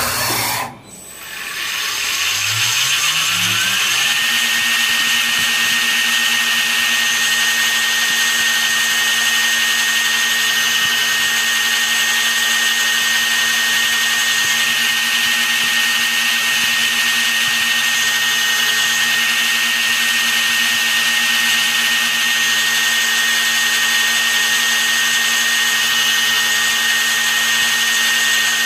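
A high-speed spindle motor spinning up over about two seconds, its whine rising in pitch, then running at a steady high whine with a constant hiss. A short burst of noise comes right at the start.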